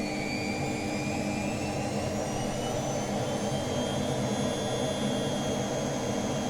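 Bosch Logixx 6 washing machine spinning at high speed during its service test: a steady drum-and-motor hum with a high whine that slowly rises in pitch.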